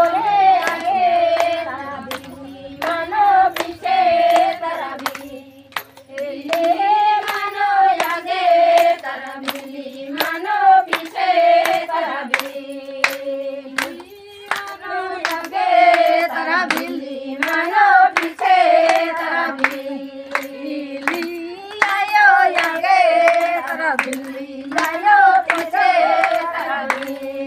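A group of women and girls singing a song together in phrases, with steady rhythmic hand clapping keeping time.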